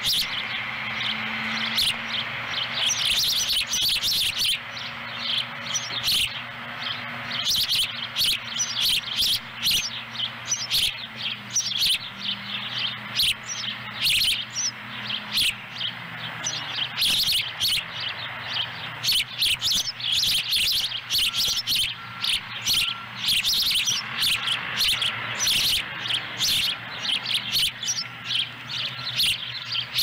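Juvenile osprey calling at the nest: many short, high chirps in quick succession, the begging calls of a young osprey wanting food. A faint steady low hum runs underneath.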